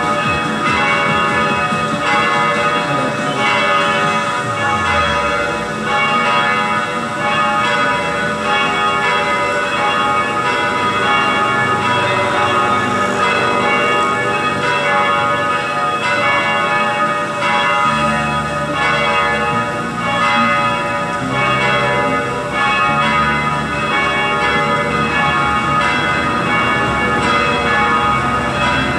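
A set of three cast church bells, about 1,800 kg together, ringing continuously as the call to Sunday evening Mass, their tones overlapping without a pause.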